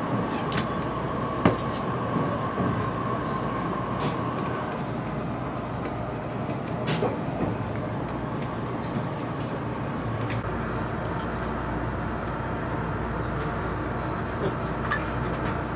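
Passenger train running, heard from inside the car. A steady high wheel squeal fades out about four seconds in, wheel clicks over rail joints come at scattered intervals, and a low rumble grows stronger about ten seconds in as the train nears a station.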